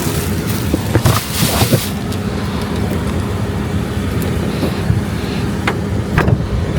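Steady low rumble of a running car, with a few short knocks and clicks.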